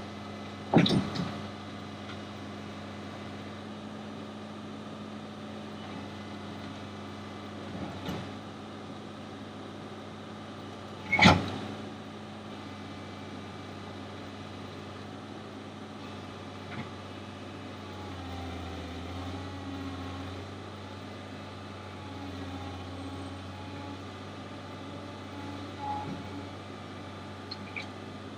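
Kobelco excavator's diesel engine running steadily, its hum wavering for a few seconds past the middle, with a few sharp clunks; the loudest comes about eleven seconds in.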